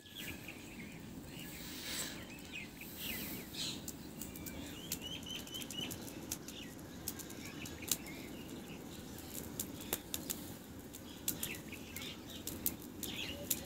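Wood fire crackling in a mud stove, with sharp pops scattered over a steady low rumble. Small birds chirp in the background, including a quick run of five notes about five seconds in.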